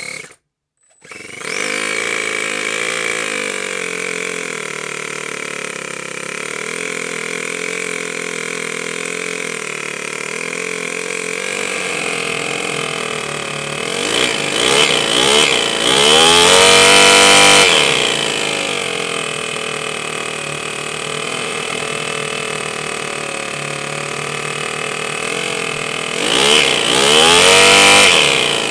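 Miniature two-cylinder four-stroke model engine, run with its supercharger disconnected, fires up about a second in and then idles steadily. It is revved up hard twice, around the middle and near the end, each time dropping back to idle, while its carburettor is still being tuned.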